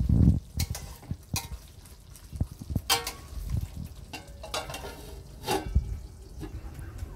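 Metal spatula stirring and scraping thick curry in a steel kadai, with a few sharp metal-on-metal knocks. About five and a half seconds in, an aluminium lid is set down on the pan with a ringing clank.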